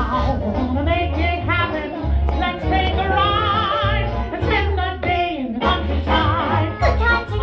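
Upbeat cartoon soundtrack music with a steady bass beat under a warbling, wavering melody, playing through a theater's speakers.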